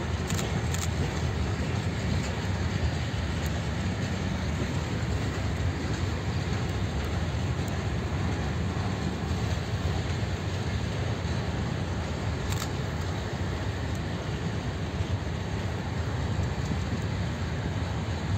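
Freight train of covered hopper wagons rolling slowly past: a steady, even rumble of wagon wheels on the rails. A few brief clicks come near the start, and one comes about twelve seconds in.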